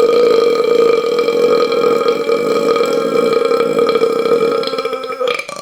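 A long, loud, deliberately forced burp held at a steady pitch, cutting off about five seconds in.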